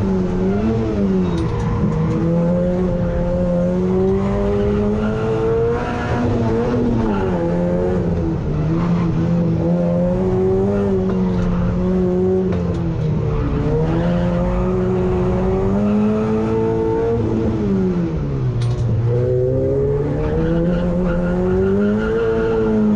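Opel Astra GSI race car's four-cylinder engine heard from inside the stripped, roll-caged cabin, revving hard and dropping in pitch several times as the driver lifts and shifts for corners, then climbing again. The deepest drop comes about three quarters of the way through.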